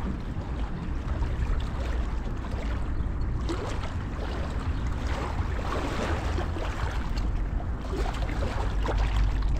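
Wind buffeting the microphone with a low, uneven rumble, over shallow harbour water lapping and trickling on a stone slipway in many small splashes and crackles.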